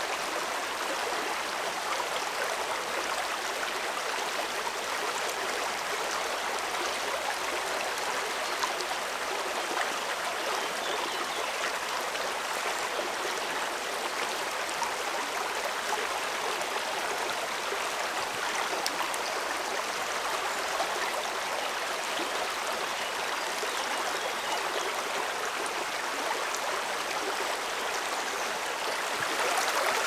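Small rocky woodland stream running over stones: a steady rush of flowing water, slightly louder at the very end.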